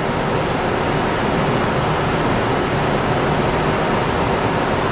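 Steady, even hiss with no speech: the room tone and recording noise of a lecture hall.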